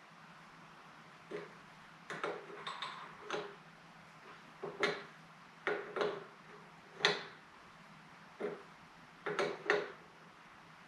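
A 1/2-inch wrench tightening a steel brake line adapter fitting into a motorcycle master cylinder. The wrench gives about a dozen short metallic clicks and clinks as it is turned and set back on the fitting, spaced irregularly, sometimes two or three close together.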